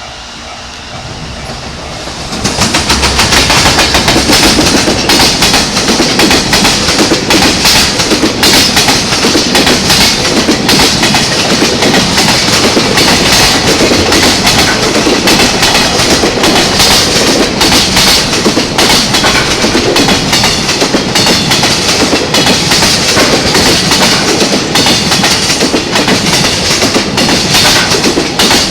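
Freight train of Koki container wagons hauled by an EF210 electric locomotive passing close by, coming in loud about two seconds in. After that a steady, dense clatter of wheels over the rail joints carries on without a break.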